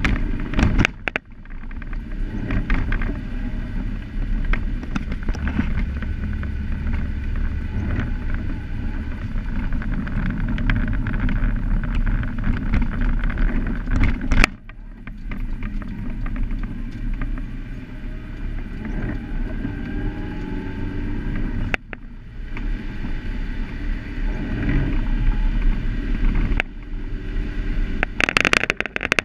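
Car cabin noise while driving on a wet road: steady low engine and tyre rumble with rattling and clicking from inside the car.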